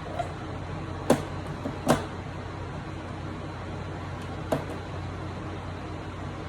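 Three short, sharp knocks as parts and screws of the unit are handled during reassembly, over a steady low hum.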